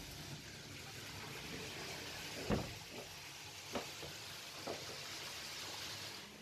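Steady sizzling hiss of food deep-frying in a small restaurant kitchen, with a few sharp clacks from the kitchen, the loudest about two and a half seconds in.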